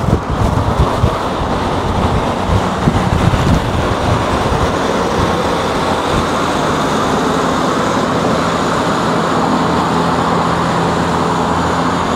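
Wind buffeting the microphone and road rush while riding a V Moto CUX electric scooter at speed. It is gusty for the first few seconds, then steadier, with a low droning hum from about four seconds in.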